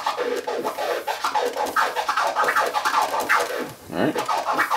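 Turntable scratching: a vinyl record pushed back and forth by hand while the crossfader cuts each stroke with two evenly spaced clicks, a two-click flare scratch repeated over and over in quick rising and falling chopped glides. There is a brief gap a little before four seconds in.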